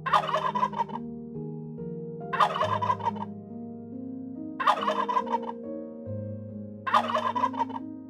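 A tom turkey gobbling four times, each rattling gobble just under a second long and about two seconds apart.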